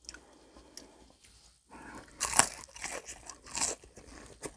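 Crunching bites into crispy battered fried squid (calamares), the first loud crunch about two seconds in and a second one about a second later, with chewing between.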